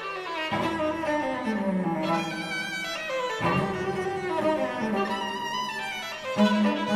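Background orchestral music led by bowed strings, violins and cellos, with two phrases sliding downward in pitch and a louder phrase entering near the end.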